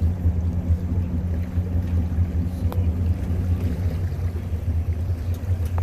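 Motorboat engine running steadily, a low even hum with a higher tone in it that fades out about two-thirds of the way through.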